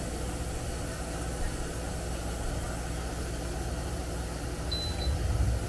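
Power XL Smokeless Grill's built-in fan running with a steady hum, and a short electronic beep from the grill's control panel near the end as the heat setting is raised.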